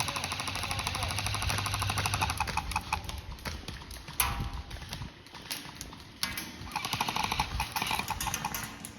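Airsoft guns firing full-auto in long rapid bursts of fast, evenly spaced clicks. The bursts ease off for a couple of seconds around the middle, with one sharp loud crack about four seconds in, then pick up again.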